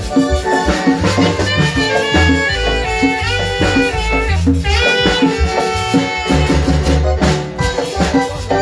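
Live marimba orquesta dance music played loud through PA speakers, with drums and a steady, even bass beat.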